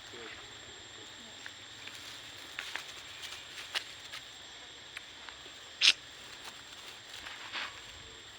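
Scattered light rustles and clicks over faint steady high-pitched ambience, with one short, sharper sound about six seconds in that is louder than the rest.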